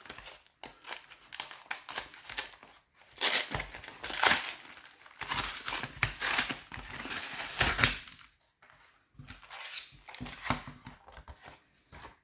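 A Pokémon TCG triple blister pack being torn and crinkled open by hand, in a series of irregular rustling, tearing bursts, the loudest in the middle, then lighter handling of the packaging near the end.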